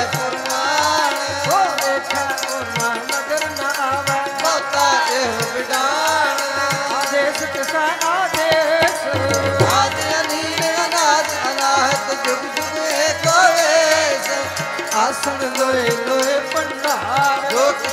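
Gurbani sung to a melody with tabla accompaniment, the drum strokes keeping a steady beat beneath the voice.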